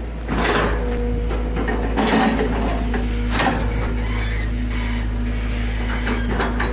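Hitachi EX200 long-arm excavator's diesel engine running steadily, with a steady hum and a higher steady tone, while its slotted skeleton bucket scrapes through grass and mud, giving several short scraping, crunching rustles.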